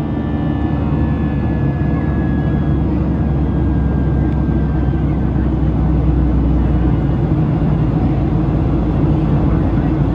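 Boeing 737-700 cabin noise in flight: the steady low rumble of the CFM56-7B engines and airflow. A few thin engine whine tones drop slightly in pitch and fade out in the first few seconds.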